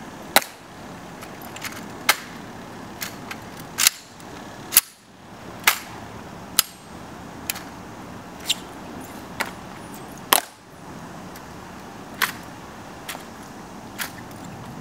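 A ceremonial rifle inspection by honor guards: sharp clicks and smacks of white-gloved hands slapping and handling a wooden-stocked M14 rifle and its bolt, with heel clicks of tapped dress shoes. About a dozen separate cracks come roughly once a second, the loudest about half a second, five seconds and ten seconds in.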